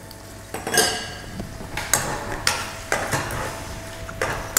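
Metal spoon stirring gnocchi in a frying pan, scraping and knocking against the pan several times.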